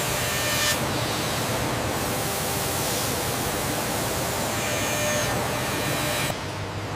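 CNC milling machine cutting a metal block under a coolant spray: a steady hissing noise with a few faint whining tones, dropping a little in level near the end.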